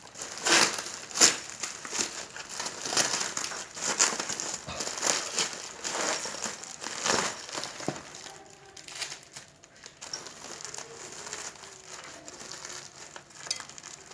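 Packaging being crinkled and torn open by hand, a dense run of crackling and rustling that thins out to softer, sparser crinkles about eight seconds in.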